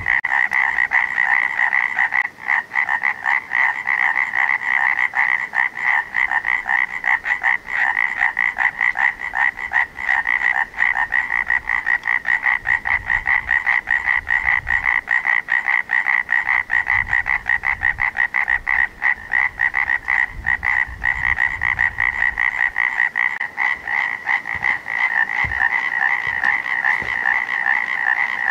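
Dense chorus of many frogs calling together, a loud, fast, evenly pulsing trill.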